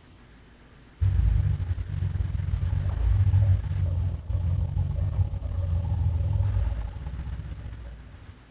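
A deep, low rumbling sound effect from a King Kong sound-effects collection. It starts suddenly about a second in, holds for about six seconds, and fades out near the end.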